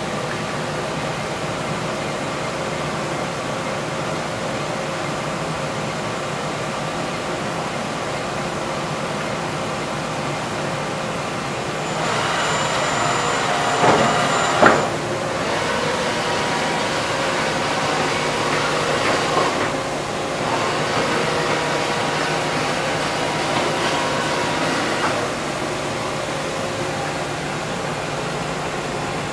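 Cincinnati CNC machine running with a steady hum of several held tones. About halfway through a high whine and a swooping rise and fall in pitch end in a sharp clunk, as the machine moves through its motions, and the tones keep shifting for several seconds after.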